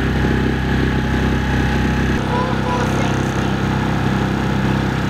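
Small 6 hp tiller outboard motor running steadily, pushing an inflatable dinghy along under way.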